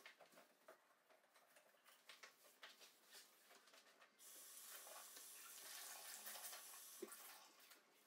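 Soft scattered clicks and knocks of small items being handled. Then, about four seconds in, a bathroom sink tap runs steadily for about three and a half seconds before it is turned off.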